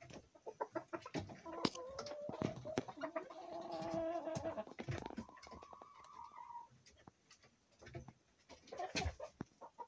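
Chickens in a coop vocalizing: a long, steady low call, then a shorter, higher one, over scattered clicks and taps. It goes quieter after about seven seconds.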